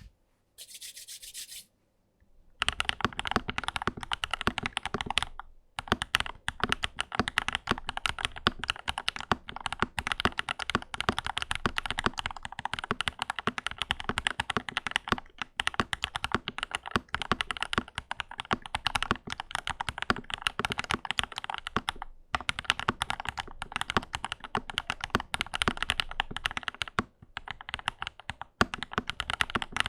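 Modded Lychee G80 mechanical keyboard, fitted with JWK Black linear switches, being typed on quickly: a dense run of key clicks that starts about two and a half seconds in, with a few brief pauses.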